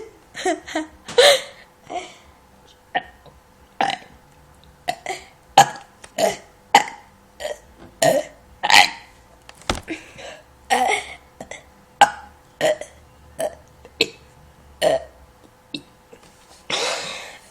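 A person burping over and over in quick, short burps, about one or two a second, with one longer breathy burst near the end.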